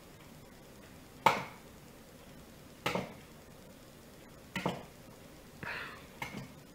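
A raw egg tapped against the rim of a glass measuring cup to crack it: a few sharp knocks about a second and a half apart, the first the loudest, then softer clicks and a brief crackle near the end.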